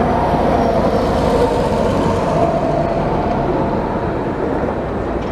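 City bus driving past close by: engine and tyre noise with a faint whining tone that fades as it moves off.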